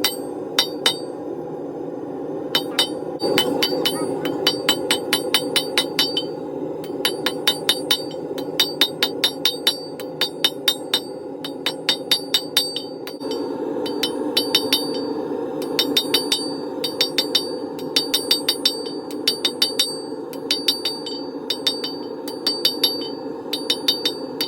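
Blacksmith's hammer striking steel on an anvil in quick runs of about four ringing blows a second, with short pauses between runs, as spikes are forged. A steady rushing noise runs underneath.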